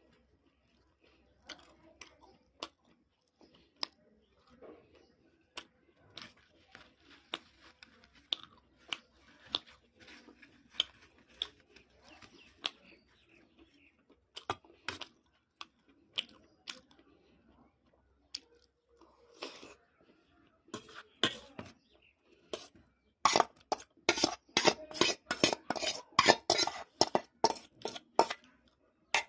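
Eating sounds with scattered clinks against a metal bowl, then a rapid run of loud clinking and scraping near the end as the last of the curry is gathered from the bowl.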